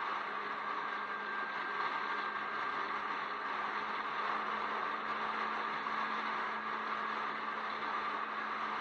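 A Jeep driving at a steady speed: an even whir of tyre, wind and engine noise with a constant low hum underneath, not changing in pitch or level.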